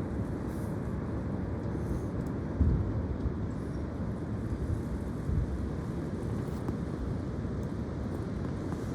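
Strong wind buffeting the microphone: a steady low rumble with two brief louder gusts, about two and a half seconds in and again a little after five seconds.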